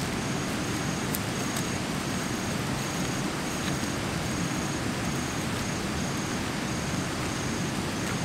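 Steady rushing background noise outdoors, with a faint high chirp repeating in short notes about one and a half times a second.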